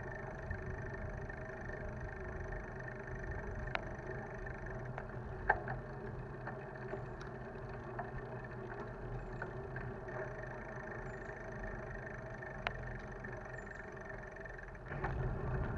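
Steady rolling noise of a bicycle on an asphalt trail, picked up by a handlebar-mounted camera, with a few sharp clicks from bumps along the way. The noise gets louder near the end.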